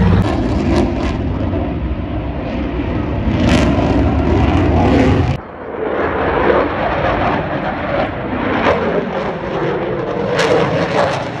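Piston engines of a propeller-driven flying boat droning steadily overhead; the sound cuts off abruptly about five seconds in. It is followed by the rougher, broader engine noise of a delta-wing fast jet flying high overhead.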